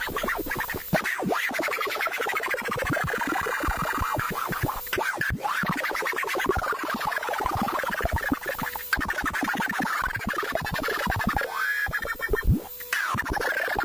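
Hand-made Arduino drone/noise synthesizer making glitchy electronic noise: rapid stuttering clicks over a buzzing band of tones, with sweeping shifts in pitch. About twelve seconds in, one tone drops steeply down into the bass.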